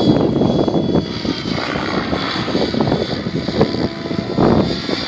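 GAUI X7 electric RC helicopter in flight: the whirr of its main rotor with a thin, steady high whine from the drivetrain.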